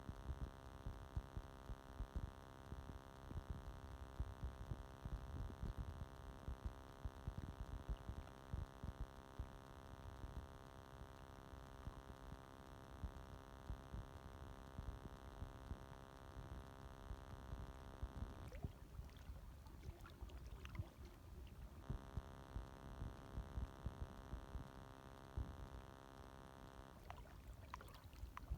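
Small gentle waves lapping, faint and uneven, under a steady many-toned hum that cuts out twice for a few seconds.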